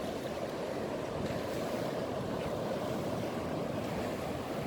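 Steady wash of surf on the beach mixed with wind, an even rushing noise with no breaks.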